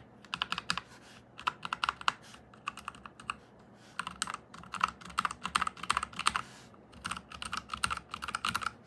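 Typing on a Royal Kludge RK100 mechanical keyboard fitted with HyperX Pudding double-shot PBT keycaps over brown switches: bursts of rapid keystroke clacks with short pauses between them.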